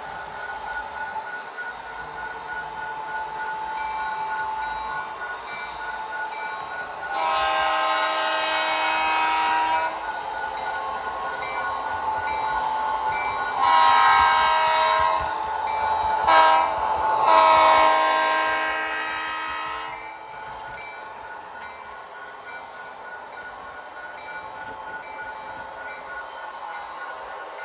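Tsunami 2 sound decoder in an Athearn Genesis GP40-2 model diesel locomotive sounding its horn in the long, long, short, long grade-crossing pattern, over the steady running sound of the diesel engine, all from the model's small onboard speaker.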